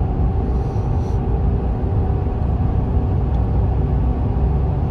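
Steady engine and road rumble heard from inside the cabin of a moving vehicle.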